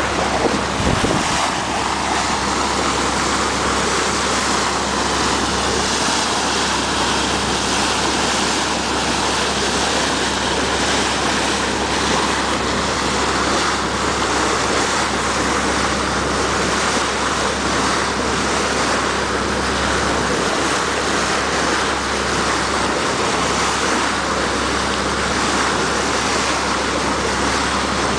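Motor yacht under way: water rushing along the hull and wind buffeting the microphone over a steady low engine hum.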